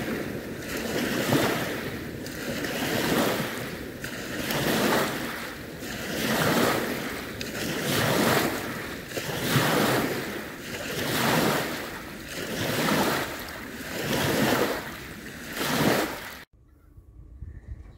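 Small lake waves breaking and washing over a pebble shore, one swell about every second and a half to two seconds. The sound cuts off suddenly near the end.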